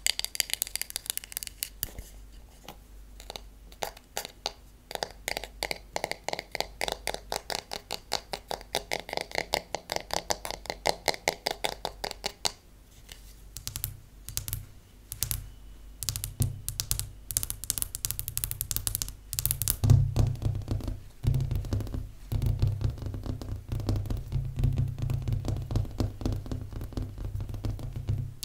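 Long fingernails tapping rapidly on the back of a wooden paddle hairbrush: a fast run of light, ringing clicks. About halfway through, the tapping moves to a glossy tabletop, and each knock carries a deeper thud.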